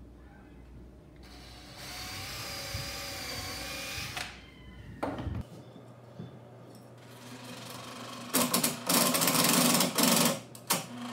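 Power drill motor whining steadily for about three seconds, then several louder stop-start bursts near the end as a screw is driven into wood.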